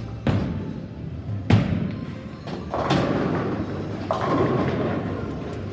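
Bowling alley: two heavy thuds of bowling balls landing on the lanes, then two longer crashes of pins clattering that die away.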